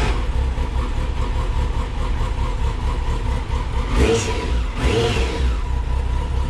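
Kawasaki Concours 14's inline-four engine running at idle, with two quick throttle blips about four and five seconds in, each rising and falling in pitch.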